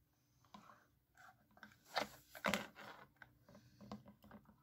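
Light clicks, taps and scrapes of plastic toy kitchenware being handled: a toy frying pan, utensil and plate knocking together as a play fried egg is moved onto the plate, with two sharper knocks about two seconds in.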